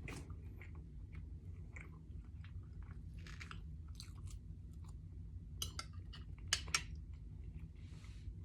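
Chewing and biting of fluffy buttermilk pancakes: scattered small mouth clicks and smacks, the sharpest a few clicks about six and a half seconds in.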